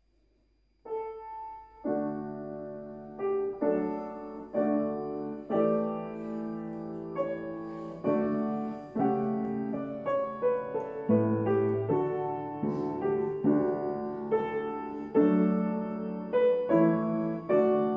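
Background music: solo piano playing slow chords, starting about a second in.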